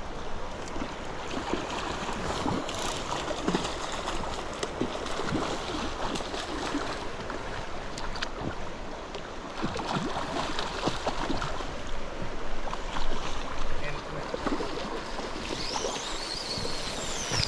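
Shallow creek water running over rocks, with irregular small splashes.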